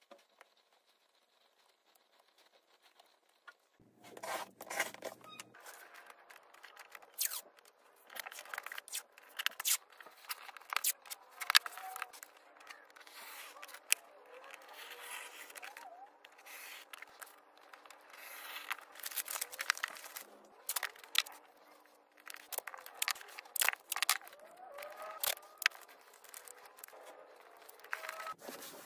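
Close-up handling sounds of green masking tape being pulled, torn and laid on a tile floor: a busy string of sharp clicks, rips and scrapes. It starts about four seconds in, after near silence.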